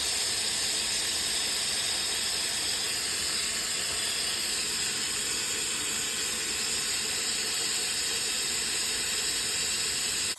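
Water hissing steadily through the rebuilt float valve of a Ritchie automatic waterer as it refills: the valve is open and the float has not yet shut it off.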